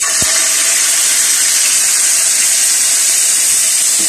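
Marinated chicken breast frying in hot oil in a pan, a loud steady sizzle that starts suddenly as the piece goes in, with a small knock just after.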